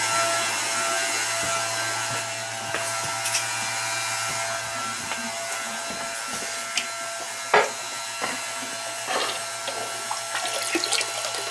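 Water draining from an electric water heater through a garden hose: a steady hiss with a low hum underneath, and a few short knocks from handling.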